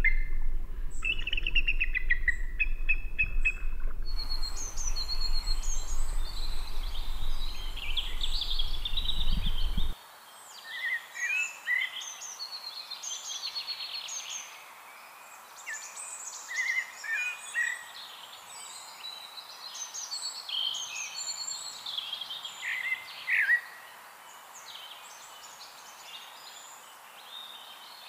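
Songbirds chirping and singing, many short, overlapping calls and trills. For the first ten seconds a louder steady low rumble lies under them, then cuts off abruptly.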